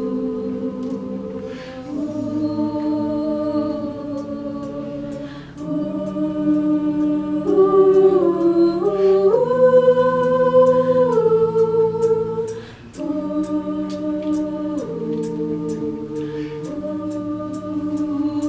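A cappella group singing sustained wordless chords that shift every couple of seconds and swell loudest in the middle. A light ticking beat runs over them and grows steadier in the second half.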